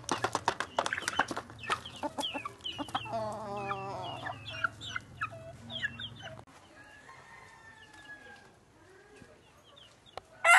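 Junglefowl clucking and chirping: many short calls over the first six seconds or so, then quieter, with a loud rooster crow starting at the very end.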